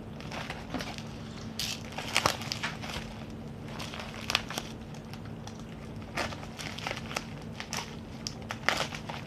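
Plastic packaging crinkling and rustling in irregular crackly spurts as small items are unwrapped and handled.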